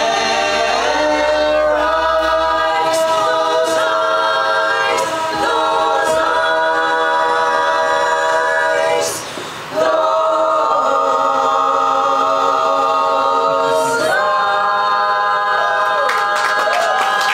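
Women's vocal group singing a cappella in close harmony, holding long sustained chords, with a brief break about nine seconds in before the final held chords.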